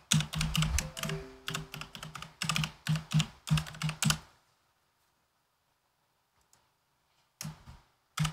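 Typing on a computer keyboard: a quick run of keystrokes for about four seconds, a pause of about three seconds, then a few more keystrokes near the end.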